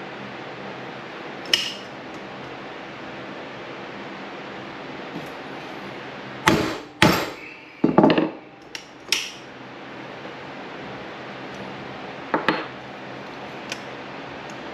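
Hammer striking metal throttle-body parts, plausibly driving a roll pin home: a single strike, then a cluster of four or five sharp, ringing strikes about halfway through, and one more near the end.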